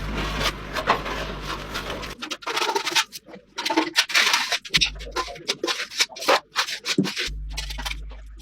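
Irregular hand rubbing and scraping strokes, as of sanding or scraping workshop parts, in short bursts broken by abrupt cuts with a low background hum coming and going.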